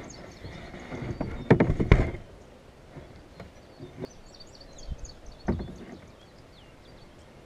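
Knocks and clunks of gear being handled in a kayak. The loudest is a cluster about one and a half to two seconds in, with another knock near five and a half seconds. Small birds chirp throughout.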